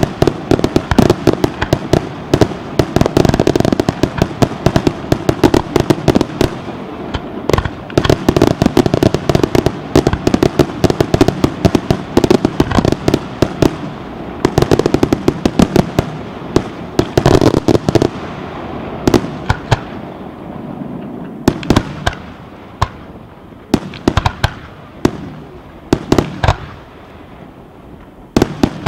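Aerial firework shells bursting in a rapid, dense barrage of bangs and crackles for most of the first half. The bangs then thin out to scattered single reports.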